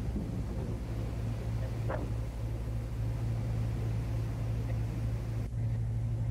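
A fast boat's engines running with a steady low drone, over the rushing wash of the wake. The sound breaks off briefly about five and a half seconds in and resumes a little louder.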